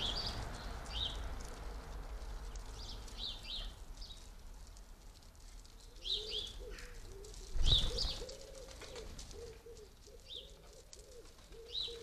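House sparrows chirping in short, scattered calls, with a pigeon cooing faintly and steadily from about halfway. A single dull thump comes about two-thirds of the way through.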